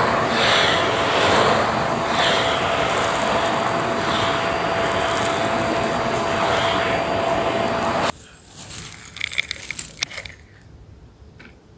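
Vacuum cleaner running steadily with a whine, switched off suddenly about eight seconds in; then scattered clicks and rattles as its dust bin is opened and the collected debris tipped out.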